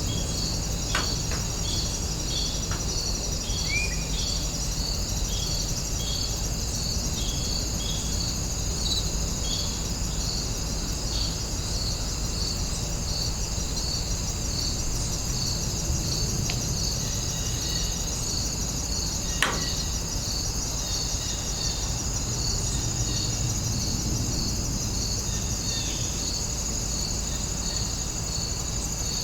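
Warm-afternoon outdoor ambience of insects chirring: a steady high drone with a chirp pulsing about twice a second, over a low steady rumble. A short rising bird chirp comes about four seconds in, and a sharp tick about twenty seconds in.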